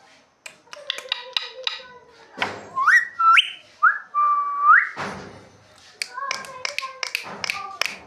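Indian ringneck parrot whistling a few quick rising notes, then one held note that turns up at its end, with clicks, short chattering notes and a few harsh calls around the whistles.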